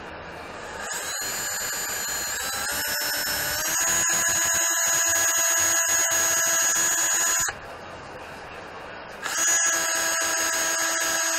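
Cordless drill drilling into a small hand-held block. Its whine rises in pitch in steps over the first few seconds as it speeds up, stops about seven seconds in, then starts again near the end.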